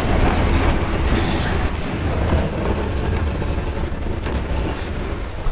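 Wind buffeting the microphone: a steady rushing noise, heaviest in the low end.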